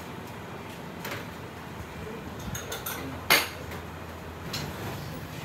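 Dishes and utensils clinking in a busy kitchen, over a steady background noise: a few light clinks, then one sharp, loud clink a little over three seconds in.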